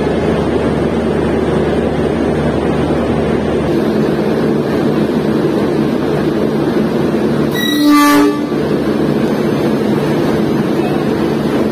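Railway locomotive running steadily close by while it is shunted to couple onto the train, with one short horn toot about eight seconds in.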